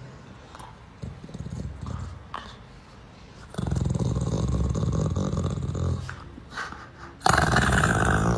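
A dog growling: a long, low, rumbling growl starting about three and a half seconds in, then a louder, harsher outburst near the end.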